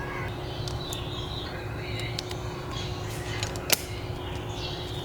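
Steady low hum with a faint steady tone over it, scattered small clicks, and one sharp click about three-quarters of the way through.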